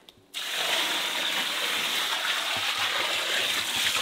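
Water poured from a bucket in a steady stream, splashing onto a compost pile; the pour starts about a third of a second in.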